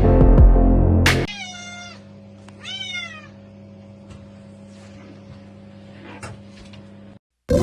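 Music cuts off about a second in. A cat then meows twice over a faint steady hum, the second meow a little louder and arching up then down in pitch.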